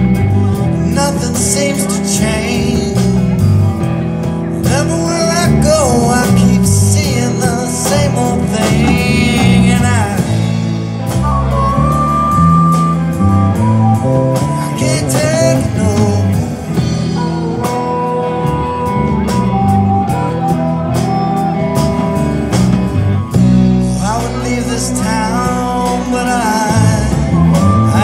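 Live blues-rock music: electric guitar with a harmonica wailing and holding long notes over it in an instrumental passage.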